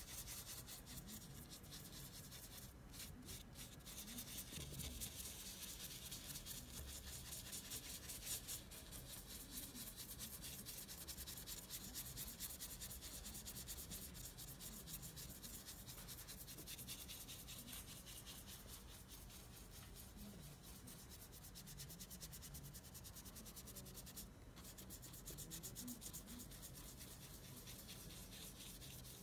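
Faint, steady scratchy rubbing of a cotton swab worked back and forth over the varnished paint surface of an old panel portrait as the yellowed varnish is cleaned off.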